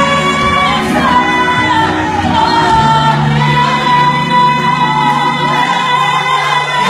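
A woman singing a gospel song into a microphone over amplified backing music, holding a long note in the second half.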